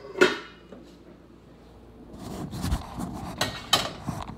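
Handling noise in a kitchen: a sharp click just after the start, then after a quiet second or so a run of scattered knocks, rubs and scrapes.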